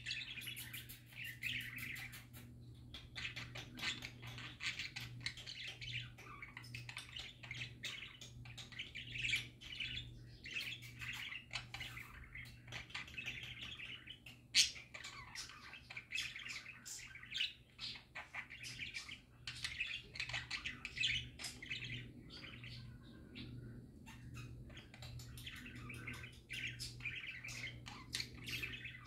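Budgerigars warbling and chattering without a break: rapid chirps, twitters and clicks. A sharp click about halfway through stands out above the song.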